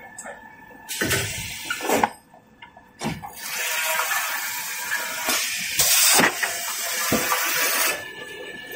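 Small toilet-paper and kitchen-towel rewinding machine running: an uneven rushing hiss with a few short knocks. It drops away briefly about two seconds in and comes back strongly about a second later.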